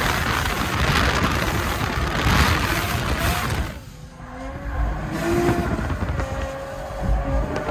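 Single-turbo BMW N54 inline-six and tyres heard from inside the cabin while the car is driven hard, a loud rushing mix of engine, tyre and wind noise. The rush drops away abruptly about four seconds in, and the engine continues with lower, shifting tones.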